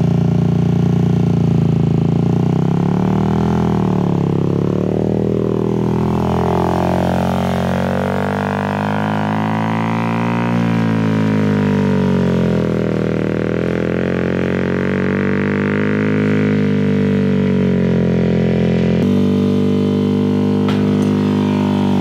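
Twin-carburettor engine of an offroad shifter kart buggy being driven, its revs repeatedly rising and falling as the driver works the throttle. The builders say it runs poorly on unsynchronised carburettors.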